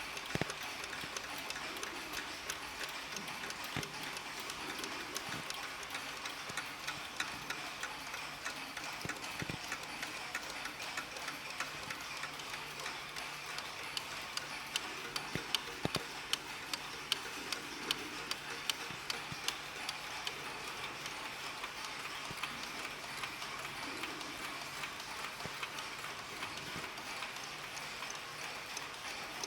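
Several mechanical mantel clocks ticking at once, their ticks overlapping at different rates into a steady, uneven patter.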